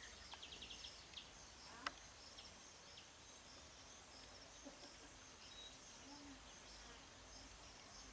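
Faint outdoor ambience with small birds chirping, including a quick run of about six high chirps near the start and scattered single chirps after. A single sharp click comes just under two seconds in.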